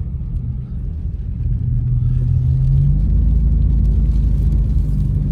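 Car engine and road noise heard from inside the cabin: a steady low rumble with a hum that gets louder about two to three seconds in and then holds.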